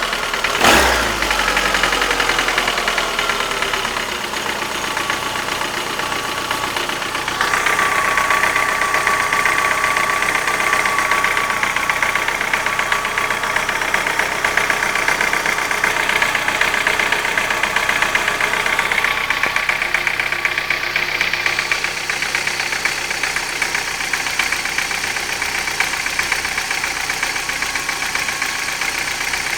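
Car engine idling with a rapid light tapping from the valvetrain. The tapping started after the hydraulic lifters were replaced and is absent when the engine is cold. A sharp click comes a little under a second in, and the engine speed settles down over the first few seconds.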